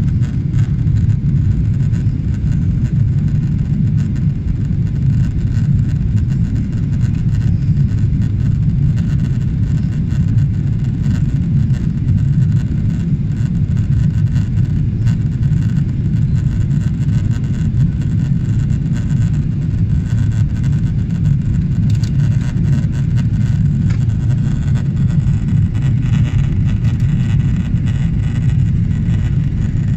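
Boeing 777-300ER cabin noise in the climb after take-off: a steady low rumble of its GE90 engines and the rushing air around the fuselage, holding even throughout.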